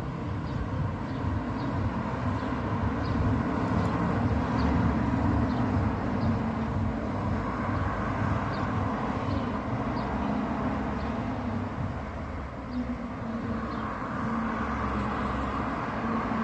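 Steady low rumble of a running engine, with faint ticks about twice a second.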